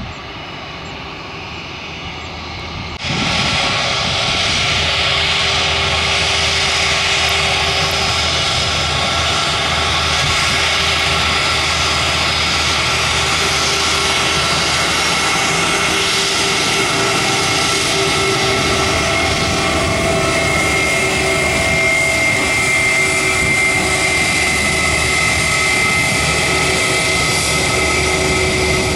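Airbus A320 jet engines running at low ground power as the airliner taxis close by: a steady roar with a high whine. It gets suddenly louder and brighter about three seconds in, and the whine grows stronger in the last third.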